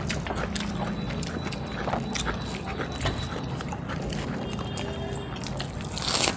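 Chewing and lip-smacking of people eating rice by hand, with many small wet clicks as fingers knead rice on metal plates. A short breathy hiss comes near the end.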